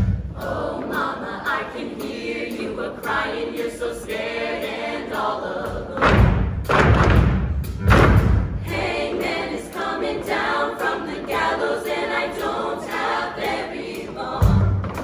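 Mixed show choir singing in harmony, live in a hall, with two heavy low thumps about six and eight seconds in.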